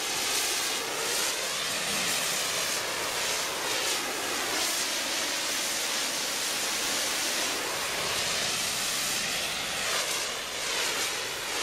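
High-pressure water jet from a pressure-washer wand spraying the side of a semi trailer: a steady hiss, dipping briefly near the end.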